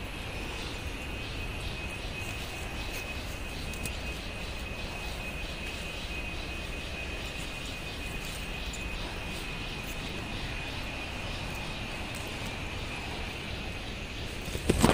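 Insects droning steadily in the forest, one unchanging high-pitched tone with faint regular pulsing, over a steady low rushing noise. A sudden loud bump comes near the end.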